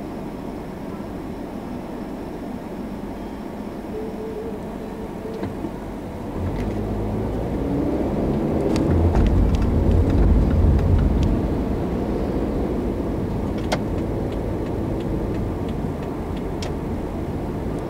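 Car engine and road noise of traffic moving off from a set of lights: a steady low rumble that swells from about six seconds in, is loudest around ten seconds, then settles to steady driving noise. A few faint clicks are scattered through the middle.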